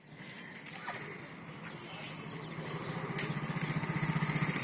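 Motorcycle engine running as the bike approaches along the road, growing steadily louder.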